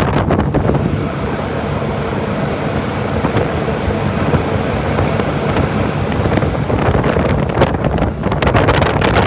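Boat running at speed on twin Suzuki 300 V6 four-stroke outboards: a steady engine drone mixed with rushing wake water and wind on the microphone.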